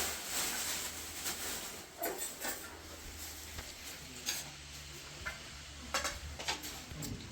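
A scraping hiss, then scattered light clicks and knocks of objects being handled.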